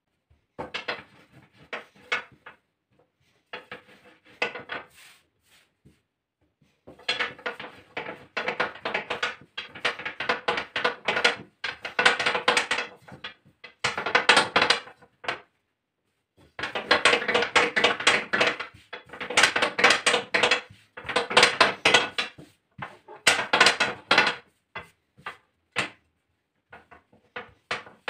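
Long thin wooden rolling pin (oklava) rolled back and forth over a sheet of dough on a kitchen countertop, clattering rapidly against the counter in runs of a few seconds with short pauses between them.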